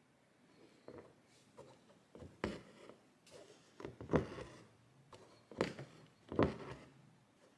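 Embroidery needle and six-strand thread passing through fabric stretched in a wooden hoop: several short, scratchy rubs and taps as the stitches are pulled through, the loudest about four and six seconds in.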